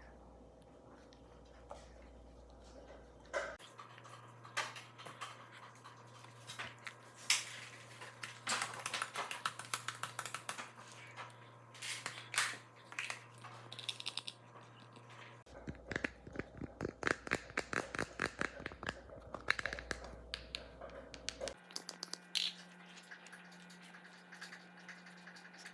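Slime being squished and pulled by hand, making bursts of small sticky clicks and pops.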